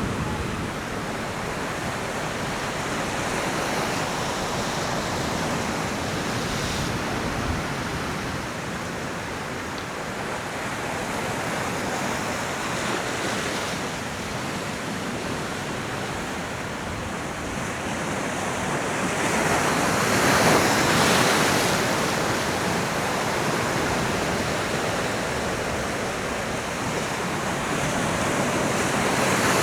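Ocean surf washing and breaking against coastal rocks in a heavy swell: a steady rush of water that grows louder about two-thirds of the way through and again near the end.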